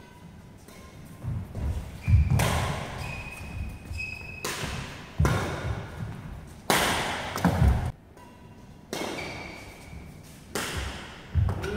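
Badminton rally in an echoing indoor hall: sharp racket strikes on the shuttlecock about once a second, mixed with thuds of footwork on the court mat and a few brief high shoe squeaks.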